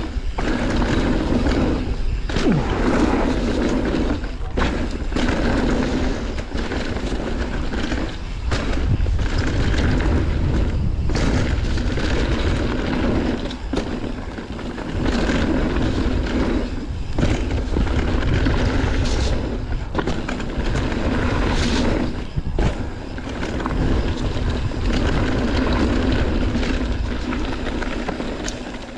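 Mountain bike being ridden along a trail: tyres rolling over a rough surface and wind on the microphone, with frequent knocks and rattles from bumps.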